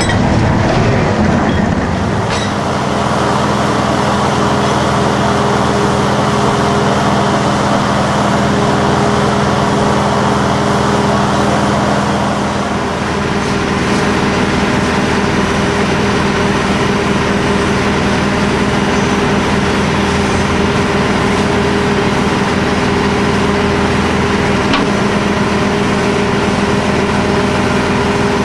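Engine running steadily at a constant speed, with an even drone. The drone's tones shift about twelve seconds in to a different engine note.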